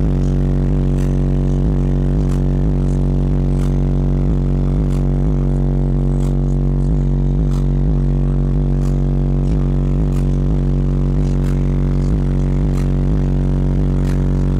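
Four Treo subwoofers in a ported box play a loud, steady, deep bass. The car's cabin is pressurised by the bass, and faint clicks or rattles come about every two-thirds of a second.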